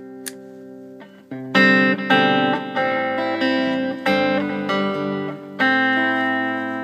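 Electric guitar played through a Bearfoot Pale Green Compressor pedal. A soft chord rings at first, then from about a second in a run of struck chords follows, each sustaining and slowly fading.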